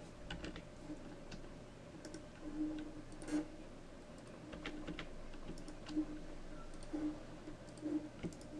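Faint, scattered clicks of a computer keyboard and mouse, a dozen or so irregular keystrokes and button clicks, over a faint steady hum.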